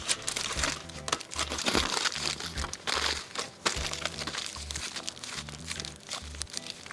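Aluminium foil crinkling and crumpling as a food parcel is wrapped up by hand for roasting in a campfire, in irregular crackles throughout, over background music with a repeating bass line.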